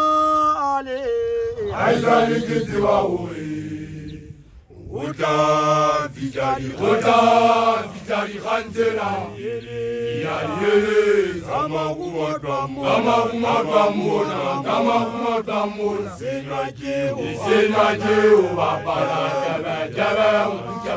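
Young male Basotho initiates singing an unaccompanied, chant-like initiation song: one standing initiate leads and a group of seated initiates' voices sing with him. A single voice is heard at first, and more voices come in after about five seconds, following a brief dip.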